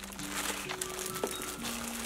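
Background music with long held notes, over the crinkling of plastic zip-top bags of enamel pins being handled and lifted out of a cardboard box.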